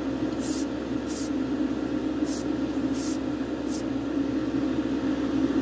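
An aerosol spray paint can hissing in five short puffs in the first four seconds as red paint goes onto a small diecast post box in a light first coat. Under it runs the steady hum of the spray booth's extractor fan.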